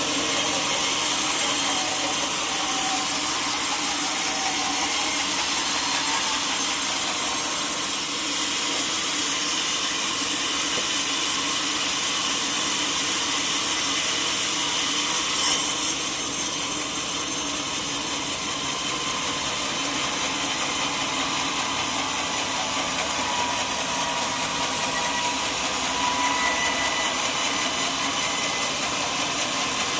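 Sawmill saw cutting lengthwise through a teak log, a steady, loud sawing noise with a brief louder surge about halfway through.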